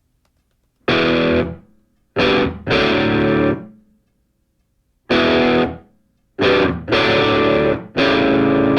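Distorted electric guitar playing heavy power chords, each struck and held briefly and then stopped dead, with short silences between them: background music.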